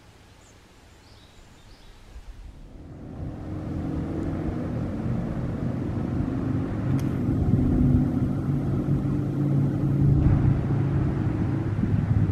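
Motor vehicle engine sound that builds up about two and a half seconds in and stays loud, a low steady hum with a few held tones.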